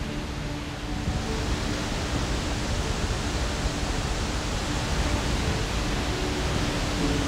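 Steady rushing noise of Skógafoss, a large waterfall, heard close to its plunge pool; it grows louder and brighter about a second in. Faint sustained music notes sit underneath.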